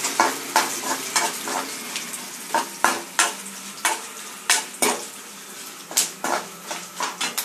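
Perforated metal spatula scraping and tapping against a nonstick kadai in irregular strokes, stirring peanuts, lentils and dried red chillies frying in hot oil, over a light sizzle. This is the tempering being fried until it turns red.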